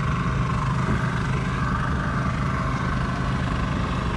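Small outboard motor running steadily at low throttle after being started.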